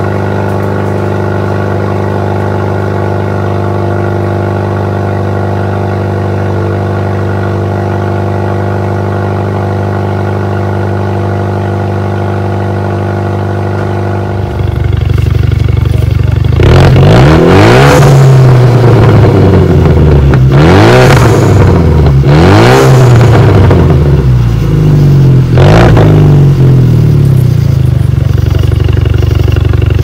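Straight-piped Hyundai Veloster Turbo's turbocharged four-cylinder idling steadily. About halfway through it jumps much louder, and the engine is revved hard in several quick blips, with pops and crackles from the exhaust between them.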